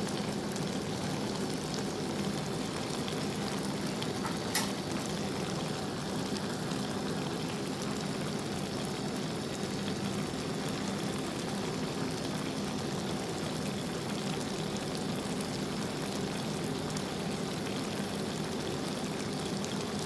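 Shrimp simmering in a garlic-butter broth in a pan, a steady bubbling with a light sizzle, and a single sharp click about four and a half seconds in.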